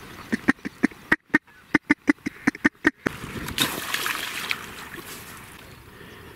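A quick run of about a dozen duck quacks in the first three seconds, then a couple of seconds of rushing noise that fades away.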